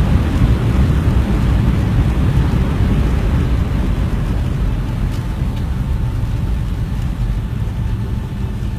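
Airliner cabin noise just after touchdown: a loud, steady rumble of the engines and of the wheels rolling on the runway, slowly getting quieter as the landing roll goes on.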